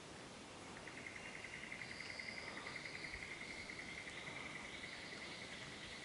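An insect trilling faintly: a rapid, even pulsed trill that starts about a second in and keeps going, with a fainter higher call over it twice.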